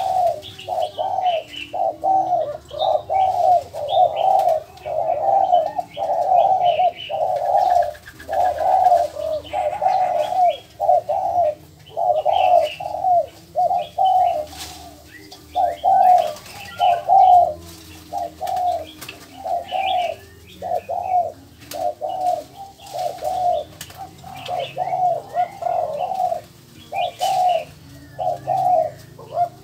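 Birds calling in a steady, unbroken series of low repeated notes, about one and a half a second, with fainter higher chirps over them.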